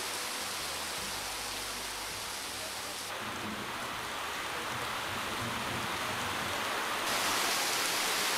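Heavy rain, a downpour, falling with a steady, even hiss.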